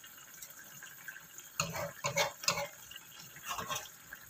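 A ladle scooping simmering sauce from a wok and pouring it back over the fish. There are several short splashes of liquid between about one and a half and four seconds in.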